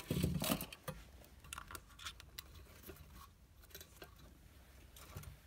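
Handling noise as the new gas water heater pilot assembly's metal tube and wires are fed through the hole in the sheet-metal burner door: a louder rustle at the start, then faint scattered scrapes and clicks.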